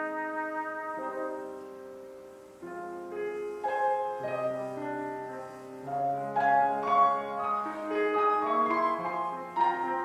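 A trumpet's held note fades away over the first couple of seconds, then a grand piano plays a solo interlude on its own.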